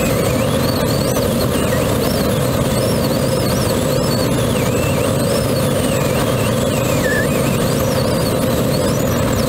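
Steady rush of airflow around a Grob G103 Twin Astir glider in soaring flight. A faint whistling tone wavers up and down in pitch above it.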